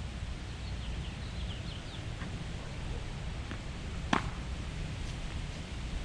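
Wind buffeting the microphone, heard as a steady low rumble. A few short, faint high chirps come about a second in, and one sharp click about four seconds in.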